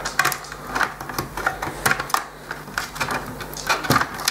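Irregular small clicks and plastic rattles as wire connectors are worked loose and pulled from the circuit board inside the oscilloscope's plastic case.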